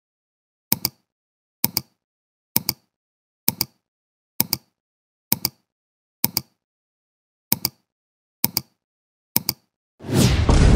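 Countdown ticking sound effect: a sharp double tick once a second, ten times. Near the end a loud burst of fireworks explosions begins.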